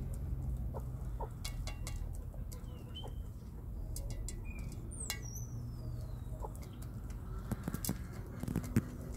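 Aseel chickens feeding from a steel bowl: scattered sharp taps of beaks pecking grain off the metal, with soft clucking. About halfway through comes a thin, high falling whistle, over a steady low background hum.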